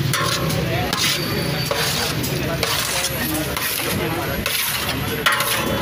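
Wooden spatula stirring and scraping diced boneless chicken frying in a large steel pan, in repeated strokes roughly one a second over a steady sizzle.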